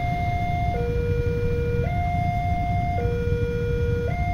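Railway level crossing warning alarm sounding ahead of an approaching train: an electronic two-tone signal alternating between a higher and a lower note about once a second. A steady low rumble of background noise lies underneath.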